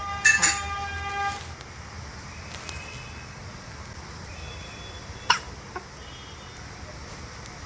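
Baby hiccuping: short, sharp hiccups near the start and again about five seconds in. Short chirping tones sound faintly in the background.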